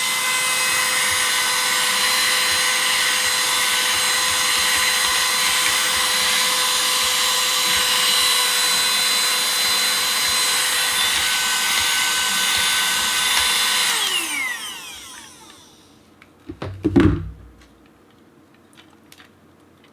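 Cleanmybricks small handheld battery vacuum cleaner running with a steady high whine, switched off about fourteen seconds in and winding down with a falling pitch. A couple of short knocks follow a few seconds later.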